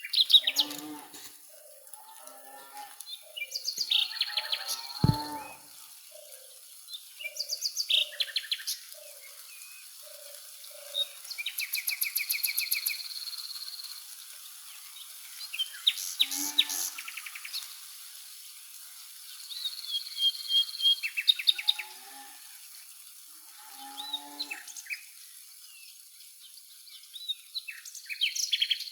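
Several wild birds singing and calling in bursts every few seconds: fast trills, rapid chip series and high held whistles. A low note repeats steadily through the first third, there is a single low thump about five seconds in, and a faint steady hiss lies underneath.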